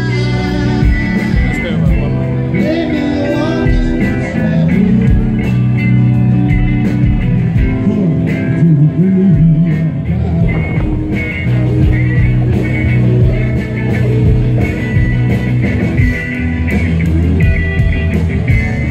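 Rock music with guitar and bass over a steady drum beat.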